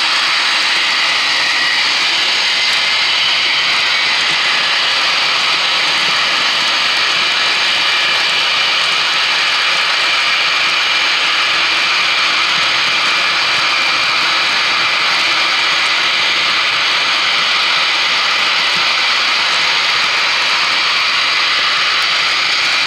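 Sound-equipped HO scale model diesel locomotives, a CP ES44AC and a Conrail SD60I, running under power with their onboard speakers playing steady diesel engine sound and the wheels rolling on the track. The sound is thin and weighted to the high end, as small speakers make it.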